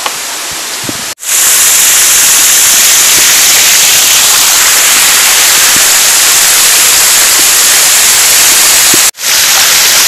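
Small waterfall pouring over rock ledges, a loud, steady hiss of rushing water. Quieter water with a few light knocks at the start gives way abruptly to the loud rush about a second in, which breaks off briefly near the end and comes straight back.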